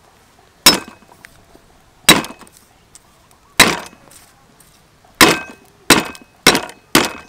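Heavy cleaver coming down on garlic cloves on a wooden chopping board: seven sharp whacks, the first four about a second and a half apart, then three quicker ones near the end.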